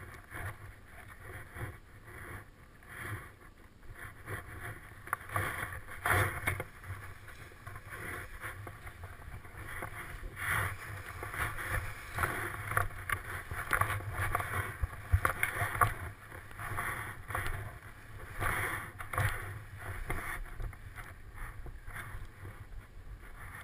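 Wind rushing over a helmet-mounted camera's microphone in paraglider flight, swelling and fading in irregular gusts.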